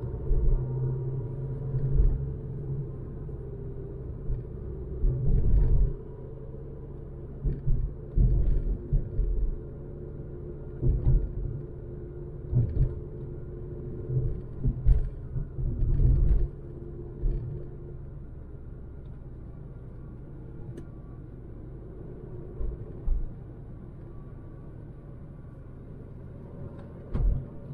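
A 2006 Ford Focus petrol engine running steadily under way with road rumble, its hum easing off after about 18 seconds. Short low thumps come every few seconds in the first half, with another near the end.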